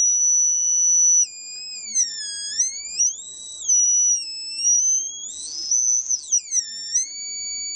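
High-pitched electrical whine from a pulsed water fuel cell rig (Lawton pulse circuit driving a step-up transformer and bifilar chokes), being overdriven at around 2 amps. The steady tone drops in pitch and swings back up about a second in, and again near the end, with short hissy bursts in between.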